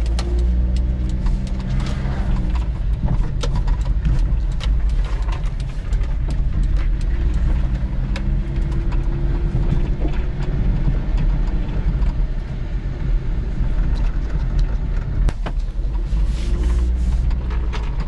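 Cab-interior engine and road noise from a 1995 Daihatsu Hijet's 660cc three-cylinder engine while driving, a steady low rumble.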